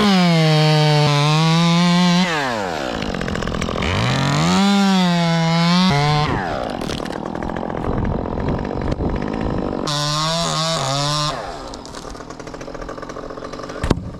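Two-stroke chainsaw revved to full throttle, its pitch sagging under load as it cuts, then dropping back and revving up twice more before settling to a lower run near the end. A sharp knock comes just before the end.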